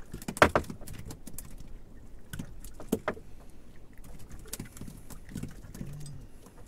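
Knocks and clatter of handling aboard a small fishing boat: one sharp knock about half a second in, two more close together around three seconds, lighter clicks between, over a low steady rumble.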